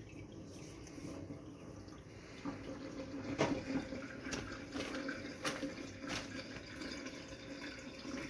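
Water sloshing and dripping in a kitchen sink, with a run of knocks and splashes starting about two and a half seconds in as packaged meat that was thawing in the water is handled.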